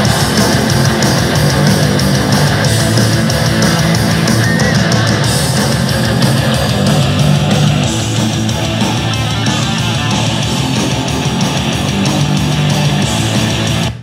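Loud rock music with guitar and heavy bass played through an Anker Soundcore Motion+ portable Bluetooth speaker; it cuts off abruptly at the end.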